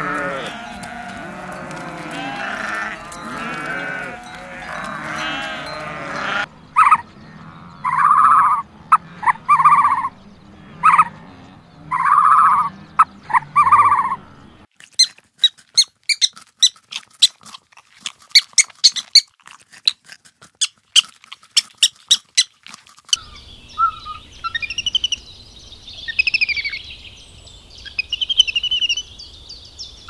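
A herd of goats bleating, many calls overlapping, for the first six seconds or so. Then a series of separate loud calls about a second apart, followed by a run of rapid sharp clicks, and high chirping calls near the end.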